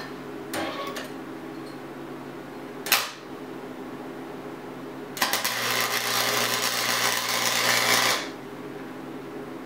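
Harbor Freight 90-amp flux-core wire welder striking an arc and crackling for about three seconds as a beginner lays a weld, with a low hum under it, then cutting off sharply. Two short knocks come before it as the steel pieces are handled.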